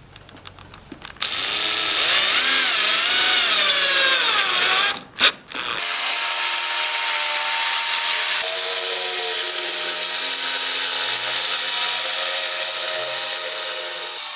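A handheld power tool whirring, its pitch wavering up and down for a few seconds. A sharp click comes about five seconds in, then it runs steadily with a hiss and fades out at the end.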